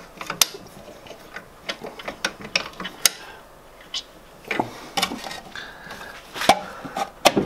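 Irregular metal clicks, taps and clunks from handling the lathe's motor and drive-belt parts while the belt is refitted, with a few louder knocks in the second half.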